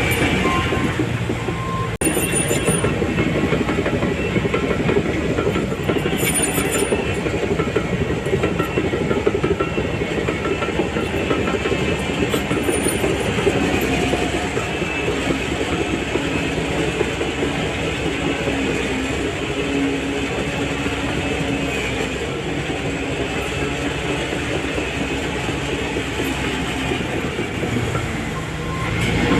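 Shantui DH17C3 crawler bulldozer working: its diesel engine and steel tracks run steadily.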